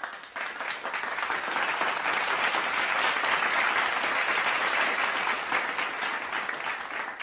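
A crowd applauding: many hands clapping at once, starting abruptly out of silence, building over the first second into a steady wash of claps and thinning slightly near the end.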